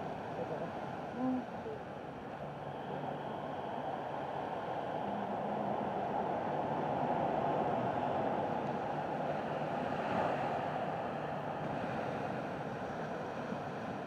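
Sea surf washing on the shore: a steady rush that swells through the middle and eases again near the end.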